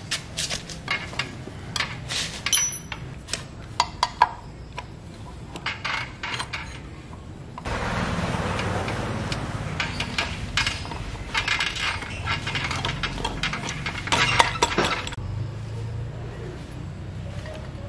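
Metal parts clinking and knocking as a dirt-bike rear wheel with its sprocket and brake disc is handled and fitted into the frame. About halfway through a steady hiss comes in under the clinks, fading near the end.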